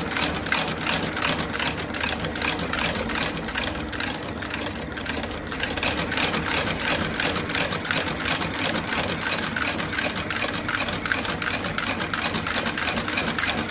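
Industrial sole-stitching machine running steadily, stitching a leather outsole onto a shoe with a rapid, regular clatter.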